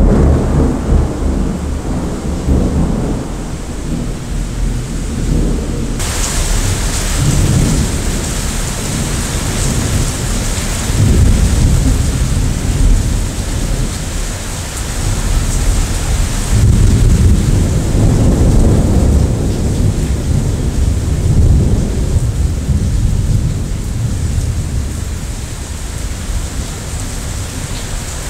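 Thunder rolling in several long, low rumbles over steady heavy rain. The rain's hiss grows suddenly stronger about six seconds in.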